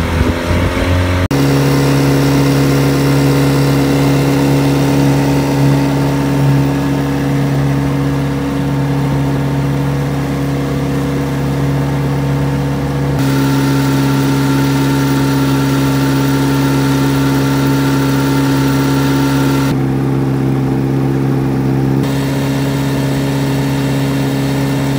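1952 Firestone (Scott-Atwater) 7.5 hp two-stroke outboard motor running steadily under way, a constant engine note that shifts slightly in pitch a few times. About the first second holds a briefly rising engine note.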